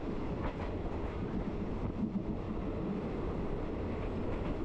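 Passenger train running along the line: a steady rumble of the moving carriage, with a few faint clacks of the wheels.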